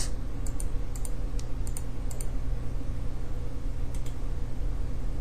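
A few sharp, scattered computer mouse clicks over a steady low hum, several in the first two seconds and another about four seconds in.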